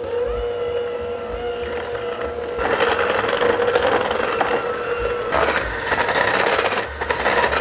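KitchenAid electric hand mixer running, its beaters creaming softened butter and sugar in a glass bowl. A steady motor whine starts right at the beginning, and after a couple of seconds it grows louder and noisier as the beaters churn through the mixture.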